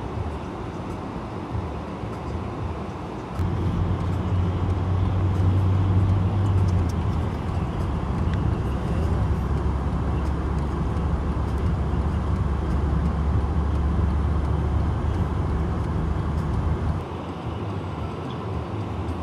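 Steady engine and road rumble heard inside a moving car's cabin, on snow-covered roads. A deeper, louder rumble comes in suddenly about three seconds in and falls away near the end.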